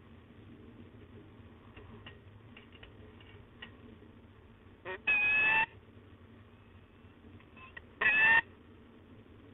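Peregrine falcon giving two loud, slightly rising calls about three seconds apart, the first about half a second long and the second a little shorter, with a few faint ticks before them.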